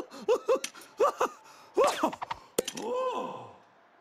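Cartoon genie character's voice giggling in quick, rapid 'hee-hee' bursts, then a longer swooping laugh. A sharp click follows, then a falling glide as the laughter dies away.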